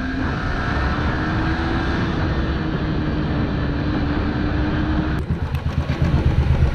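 Yamaha R15 V3's single-cylinder engine running at a steady cruise under wind rush on the mount, with a steady engine tone. About five seconds in, the sound cuts abruptly to motorcycle engines at low speed, pulsing in a quick, even beat.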